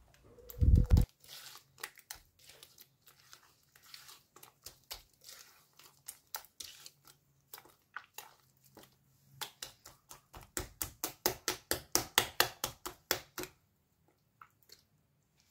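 A bare hand squelching and squeezing eggs into a soft butter, sugar and oil mixture in a glass bowl: irregular wet strokes that pick up into a quick rhythm of about five strokes a second near the end. A brief low thump about a second in.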